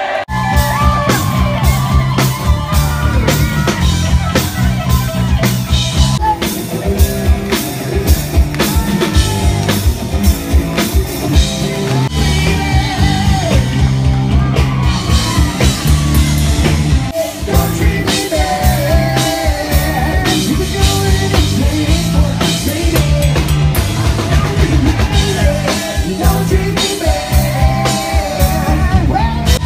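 Live rock band playing: drum kit, electric guitar and bass, with a lead vocalist singing.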